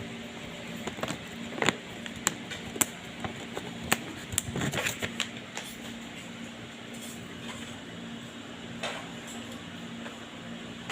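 Bulldog puppy chewing a crunchy treat: a run of sharp, irregular crunches and clicks in the first half, one more near the end, over a steady low hum.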